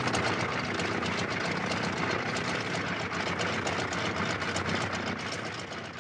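Fokker Dr.I triplane's engine idling steadily with its propeller turning, fading down near the end.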